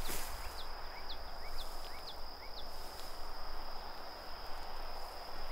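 Crickets and other insects calling: a steady high-pitched trill with short chirps repeating about twice a second, over an outdoor hiss. A short sharp scrape or knock comes right at the start.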